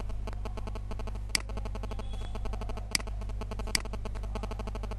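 Three sharp clicks from working a computer, the first about a second and a half in and the last two under a second apart, over a steady low hum.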